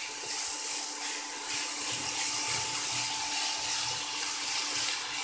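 Chopped onion, garlic and mushrooms sautéing in oil in a nonstick pan as they are stirred: a steady sizzling hiss with a faint steady tone underneath.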